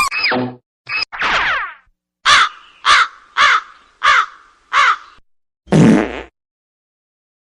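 Comedy sound effects in sequence: a short sound falling in pitch, then a crow cawing five times about half a second apart, then a short fart sound effect.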